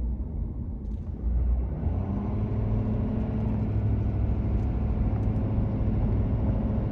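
Car interior while driving: engine and tyre rumble on a bumpy road. About two seconds in, a steadier low engine hum sets in.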